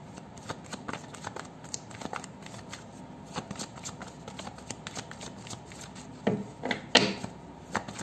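Tarot cards being shuffled and handled by hand: a run of quick, light card snaps and flicks, with a few louder ones about six to seven seconds in.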